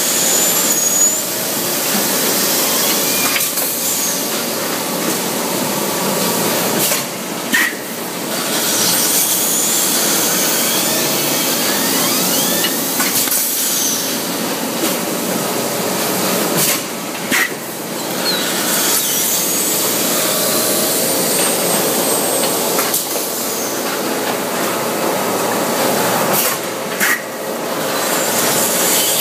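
Uniloy blow molding machine running: a loud, steady machine noise, with a short sharp sound about every ten seconds as it cycles through a mould cycle.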